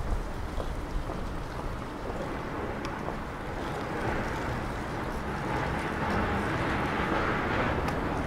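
Outdoor street ambience with wind rumbling on the microphone, and the hiss of a passing road vehicle growing steadily louder over the second half.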